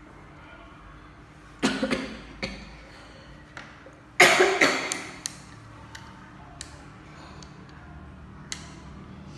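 Abacus beads clattering in two quick bursts, about two seconds in and again, louder, about four seconds in, followed by a few light clicks: the abacus being cleared and set for a sum.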